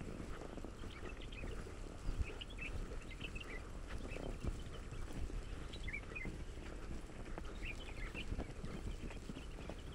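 Small birds chirping in short, scattered calls over steady low outdoor noise, with a few light knocks.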